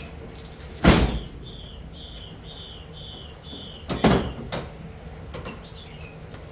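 Two loud bangs, about three seconds apart, each with a short rattling tail, with a series of about six short high chirps between them.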